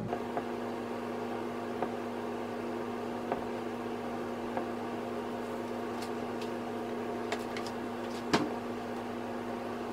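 A steady electrical hum with a clear low tone, under a few soft taps and light knocks from chicken breast being dredged in flour on a glass plate; the loudest knock comes about eight seconds in.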